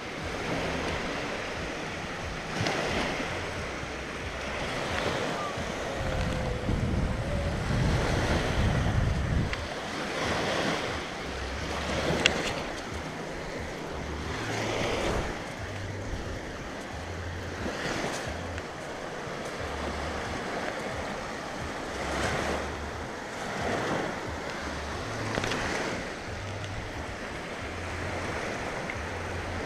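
Small wind-driven lake waves lapping and washing onto a sandy shore, swelling every two to three seconds, with wind buffeting the microphone, heaviest a few seconds in.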